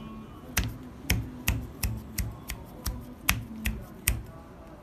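About ten sharp finger snaps, roughly three a second, made beside a repaired headset's microphone to test that it records.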